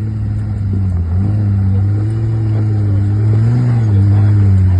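4x4's engine pulling at low revs while crawling off-road. Its speed steps up about a second in, then rises and dips gently.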